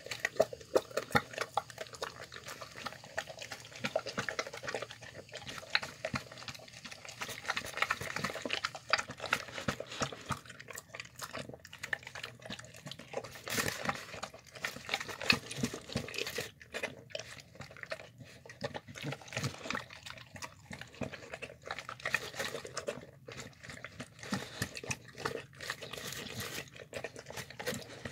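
A dog eating wet food out of a plastic tub: rapid wet licking, lapping and smacking, heard as many quick clicks throughout.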